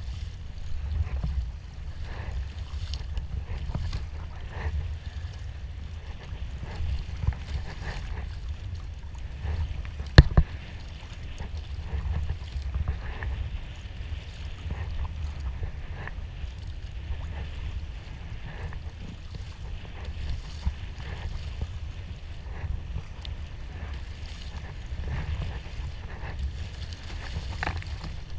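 Sea kayak being paddled: repeated soft splashes of the paddle blades and water against the hull over a steady low rumble of wind on the microphone, with one sharp knock about ten seconds in.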